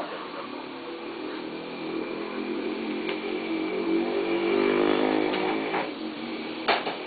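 A motor's hum that swells and then fades, with a sharp click near the end.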